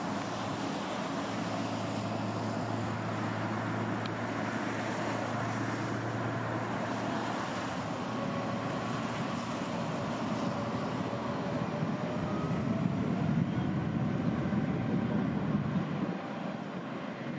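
Jet airliner's engines running as it passes, a steady rumble with a faint rising whine that swells about twelve seconds in and falls away near the end, over a constant hiss of rain.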